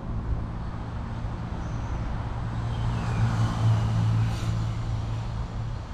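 Diesel locomotive engine running with a steady low drone. It grows louder to a peak a little past halfway, then eases off slightly near the end.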